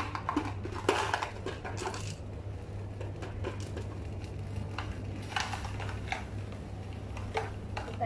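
Scattered light clicks and crackles from an aluminium-foil pouch of water heating over burning camphor, a few at a time, over a steady low hum.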